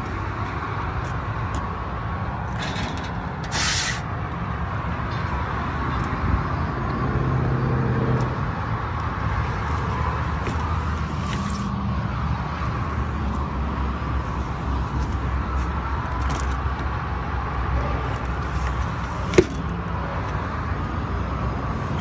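Steady low rumble and hum of a Lennox rooftop HVAC unit running, with a brief scrape a few seconds in and a sharp click near the end as filters are handled in its filter section.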